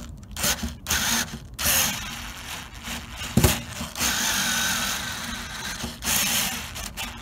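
Drill-driver running in short stop-start bursts and then one longer steady run, driving a screw into a hole in the grill's steel lid so that the screw cuts threads in it. A single sharp knock comes about three and a half seconds in.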